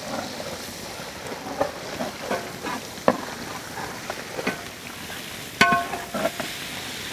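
Chopped onions sizzling in hot oil in a large metal uruli as a long metal spoon stirs and scrapes through them, with scattered short knocks of spoon on pan. About five and a half seconds in comes a short ringing clang, the loudest sound.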